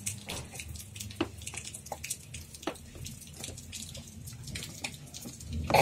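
Baby's wet mouth sounds while sucking and eating porridge from a squeeze-bottle spoon feeder: irregular small smacks and slurping clicks. A brief voice sound near the end.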